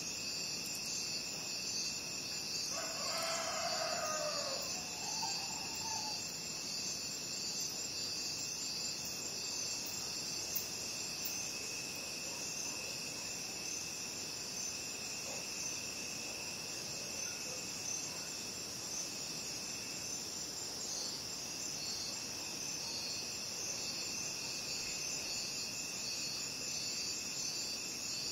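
Night chorus of crickets, a steady high trilling, with a rooster crowing once about three seconds in.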